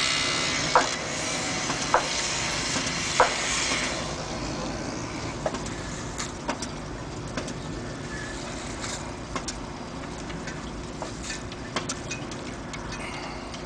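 Hand shovel digging into packed dirt beside a concrete vault, with a sharp strike of the blade about every second for the first few seconds, then fainter scattered scrapes and clicks. Steady background machine noise runs underneath and drops off about four seconds in.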